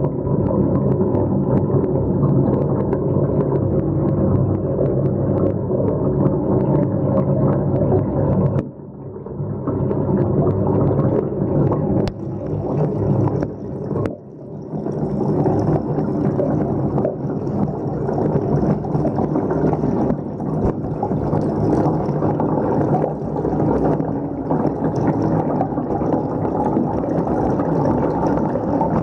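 Bathtub water swirling down the drain in a whirlpool, a steady low gurgling rush, broken by brief dips about nine and fourteen seconds in.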